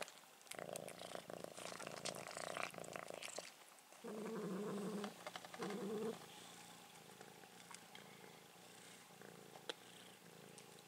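Domestic cats purring while crunching dry kibble from a bowl, with a louder low growl in two parts about four to six seconds in: one cat growling over the food as another purrs.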